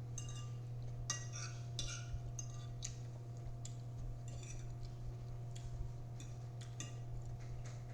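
Quiet eating sounds: scattered light clicks and clinks of a fork against a plate of salad, irregular and brief, over a steady low electrical hum.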